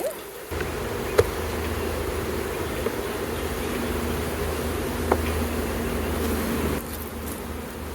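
Honeybees buzzing steadily around an open hive, with two sharp knocks, one about a second in and one about five seconds in, as a wooden frame goes back into the hive box.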